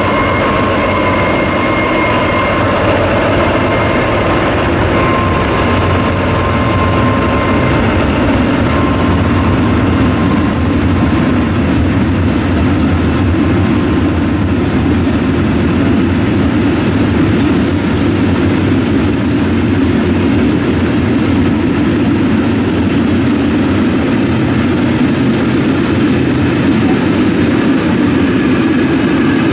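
Diesel locomotive engine running steadily, with a thin high whine over it that fades out in the first ten seconds or so.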